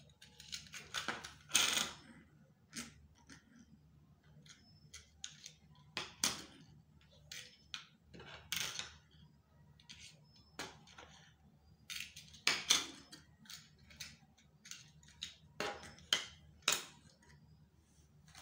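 Round discs being set down and slid into place one by one on a wooden tabletop: irregular clicks and taps, some in quick clusters, with short scraping slides.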